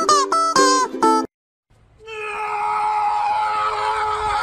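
Plucked-string background music for about the first second, then a short gap. After that comes one long, held, high-pitched cry lasting about three seconds that drops off sharply at the end.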